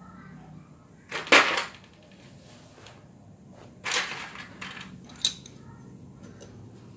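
Small metal parts and tools being handled off to the side of the engine work: two short clattering rattles, the first the loudest, and a sharp metallic clink about five seconds in.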